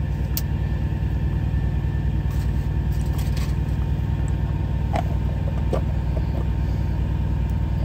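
A truck's diesel engine idling with a steady, low pulsing drone. A few light clicks and taps come from a plastic butter tub being handled.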